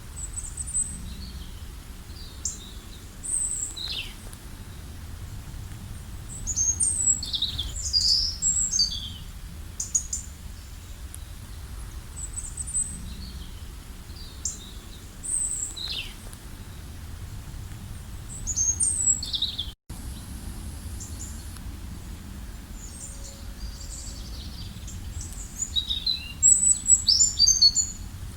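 Small songbirds chirping and singing in short, high, quick phrases, with busier flurries several times and near the end, over a steady low background rumble. The sound drops out for an instant about two-thirds of the way through.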